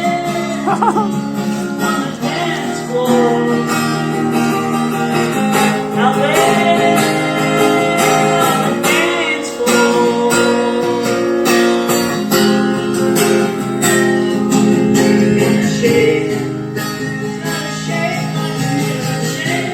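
Music: a Taylor GS Mini acoustic guitar strummed steadily, with a melody line over it that slides between notes.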